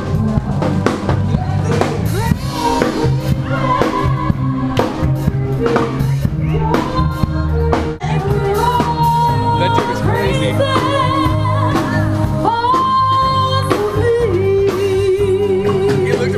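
Music: a song with a singer over a steady drum-kit beat and bass line.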